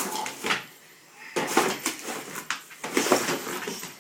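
Wrapping paper crinkling and tearing as a dog tears at a wrapped present, in irregular crackly bursts with a short lull about a second in.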